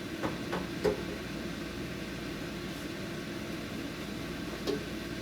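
A steady low mechanical hum, with three light knocks in the first second and one more near the end.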